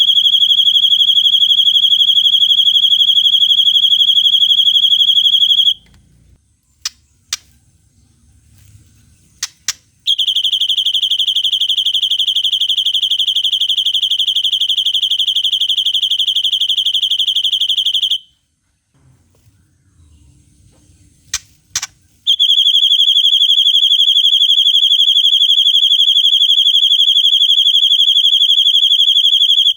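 White-rumped shama (murai batu) singing long, very rapid trills at one steady high pitch, the drawn-out 'cililin' or 'tembakan' style, in three long bouts of about six to eight seconds. Between the bouts come a few short, sharp chip notes.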